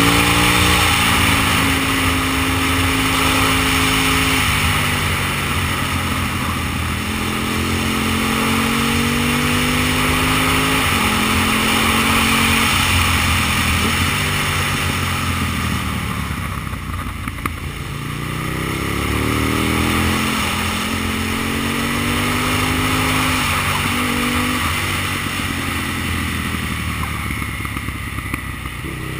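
Aprilia Tuono's 60-degree V-twin engine pulling hard through the gears, its pitch rising and then stepping down at each upshift, easing off and falling in pitch about halfway through before building again. Wind rush runs under the engine.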